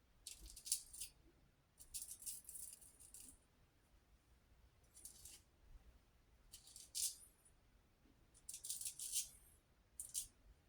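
Razor blade scraping through lathered stubble in about six short strokes, each a brief crisp rasp.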